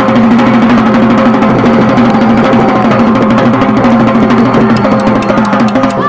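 Loud music driven by a drum kit, with many quick drum hits over steady pitched notes.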